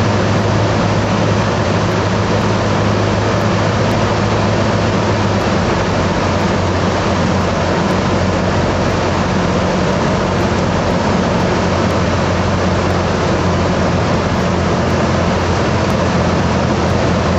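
Single-engine propeller airplane's engine and propeller droning steadily inside the cockpit, a low steady hum over a broad hiss; the hum drops slightly in pitch about five seconds in.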